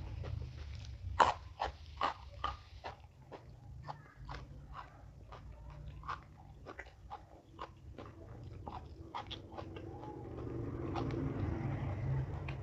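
Close-up crunching and chewing of raw vegetables, with a run of loud, crisp crunches in the first few seconds and softer chewing crunches after.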